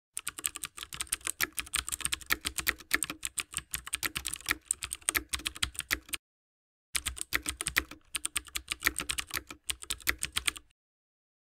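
Rapid clicking of a computer keyboard being typed on, in two runs split by a short pause.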